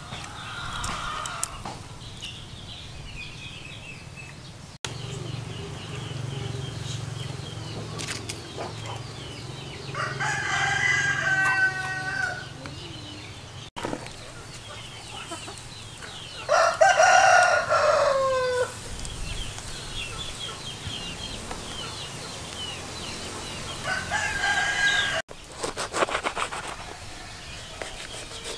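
A rooster crows three times, about six to seven seconds apart, each crow about two seconds long and falling at the end; the middle crow is the loudest. Faint high chirps sound in between.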